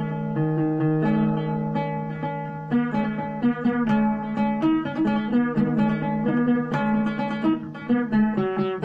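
Solo oud being played: a melody of plucked notes over a low ringing drone, picked faster from about three seconds in.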